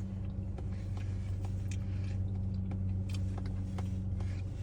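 Steady low mechanical hum, like a motor or engine running, with a few faint clicks.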